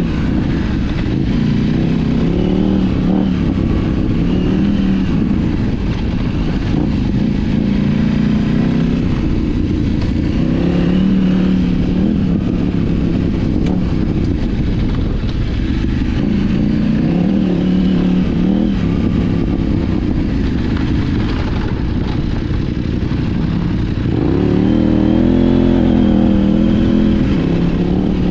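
KTM 790 Adventure R's parallel-twin engine, fitted with an Arrow slip-on exhaust and de-cat mid pipe, running under riding load on a dirt trail, its note rising and falling as the throttle opens and closes. Near the end it revs higher and gets louder.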